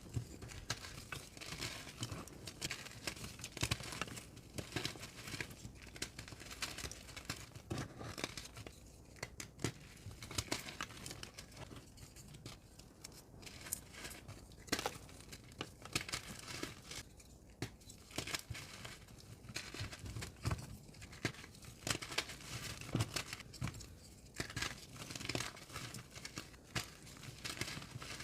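Re-formed blocks of gym chalk being crushed and crumbled, a dense, irregular run of dry crunching and crackling.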